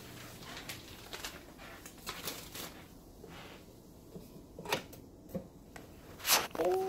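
Scattered light clicks and rustles of kitchen handling, with one louder sharp knock about six seconds in.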